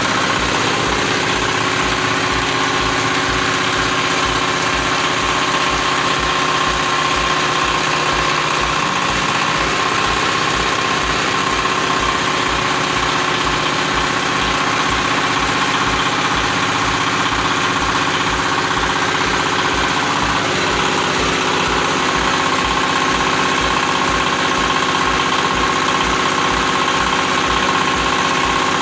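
Single-cylinder-style diesel engine driving a hydraulic baling press, running steadily with a regular low thud about three times a second and a steady high whine over it; the tones dip briefly twice, as the load on the engine shifts.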